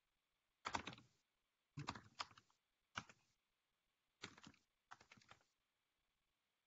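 Typing on a computer keyboard: five short bursts of quick key clicks, with silent gaps between them.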